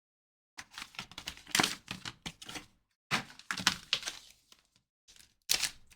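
Trading cards in plastic holders being handled on a table: three runs of quick clicks, taps and crinkles with short silent gaps between them.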